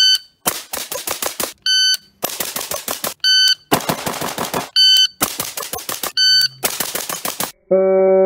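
Five strings of rapid fire from an AR-15-style rifle. Each string starts with a short electronic shot-timer beep, followed at once by about six fast shots, as in a Bill Drill. Near the end, guitar music comes in.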